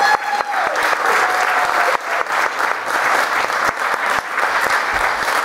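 Small audience applauding steadily, a dense patter of hand claps. In the first half second a long held high voice trails off under it.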